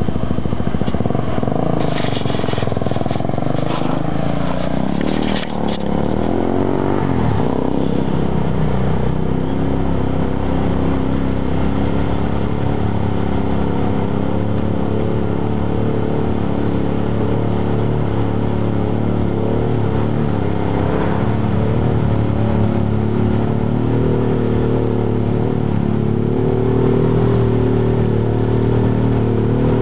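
2006 Arctic Cat 500 ATV's single-cylinder four-stroke engine running under throttle as it churns through a water crossing. Its pitch rises and falls over the first several seconds, then holds a steady working note that grows a little louder near the end.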